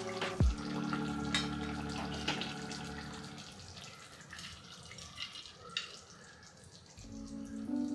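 Thick potato curry simmering in a pan, its bubbles popping now and then as scattered small wet pops.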